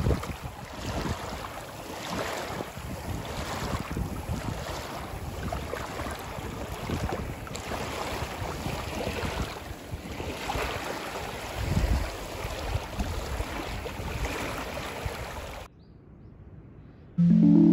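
Wind gusting over a choppy lake and small waves washing against the shore, with wind buffeting the microphone in uneven surges. It cuts off suddenly near the end, and music starts just before the end.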